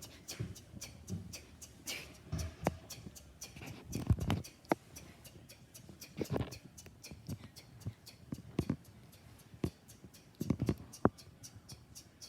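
2001 Honda CR-V turn-signal flasher clicking evenly, about three clicks a second, with a few louder knocks at irregular moments.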